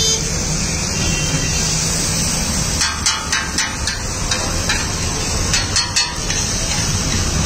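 Metal spatula striking and scraping a flat griddle (tawa) while chopping and mixing the potato stuffing, in a quick run of sharp clanks from about three to six seconds in, over a steady hiss.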